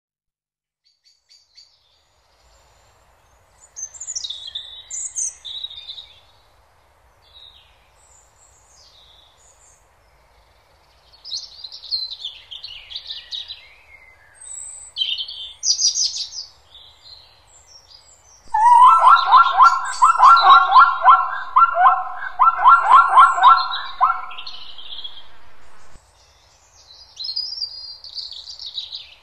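Songbirds chirping and singing in short, scattered phrases. About two-thirds of the way through comes the loudest sound: an animal call made of rapid, repeated notes that lasts about six seconds and then stops.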